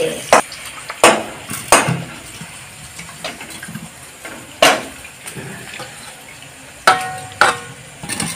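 Water splashing as raw chicken pieces are washed and handled in a steel bowl, with about six sharp knocks and clinks against the metal. The last two, near the end, ring briefly.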